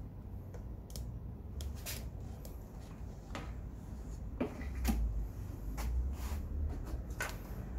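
Scattered light clicks and knocks of hands handling a plastic oil funnel and parts at a scooter engine's oil filler, over a low steady rumble.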